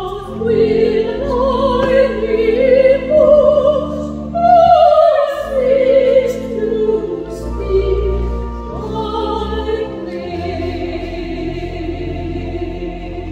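Two sopranos singing a duet with wide vibrato over a steady low accompaniment. The last phrase settles into a long held note for the final few seconds.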